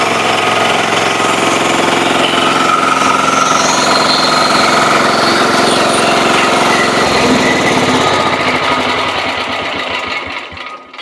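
Engine of a remote-controlled self-propelled flail mower running under load while its flail rotor chops tough grass, a loud steady machine noise. It changes in tone about seven seconds in and dies away near the end.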